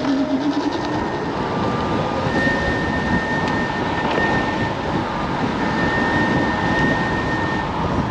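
Rush of wind and road rumble on the microphone while riding a Kaabo Wolf King GT electric scooter at speed, loud and steady, swelling at the start. A thin high whine comes and goes over it.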